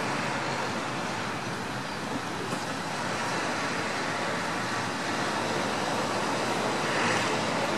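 Steady background noise of city road traffic, even throughout with no distinct events.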